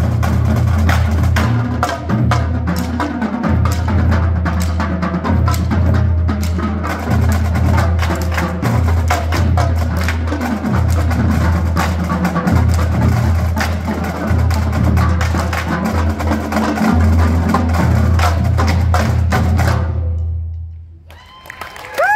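School drumline of snare drums, tenor drums and bass drums playing a fast, dense cadence. It stops abruptly about twenty seconds in, the final cutoff of the piece, and the ring dies away over the last two seconds.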